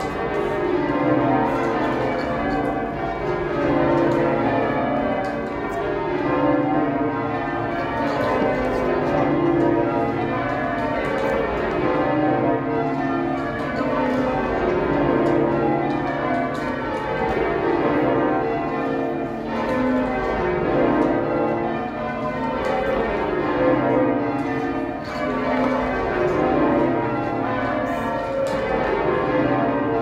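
York Minster's heavy ring of twelve church bells, cast in 1925 with a 59 cwt tenor, being rung full-circle in change ringing. The sound is a continuous stream of overlapping bell strikes with a boomy tone, heard from the ringing chamber below the bells.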